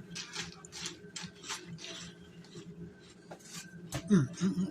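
Someone eating crunchy cereal from a bowl: a string of short, crisp crunches and clicks, with a brief hummed "mm" about four seconds in.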